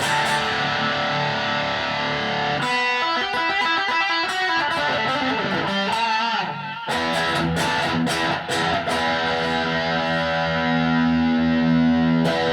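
Single-coil electric guitar played through a Blackstar ID:Core 40 combo amp on a driven, distorted voice. It starts with strummed chords, moves to a run of single notes in the middle, then more chord strikes that are left to ring near the end.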